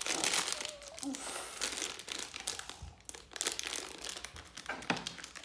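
Plastic wrapper of a toy blind bag being handled and squeezed, crinkling in irregular crackles, with a short lull about three seconds in.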